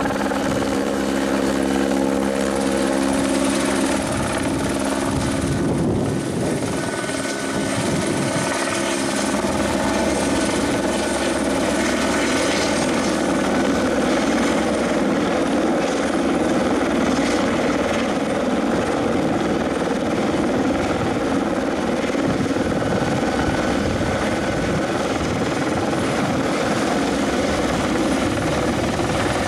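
Helicopter hovering overhead, lifting a floodlight-mast section on a long line: steady rotor and engine noise.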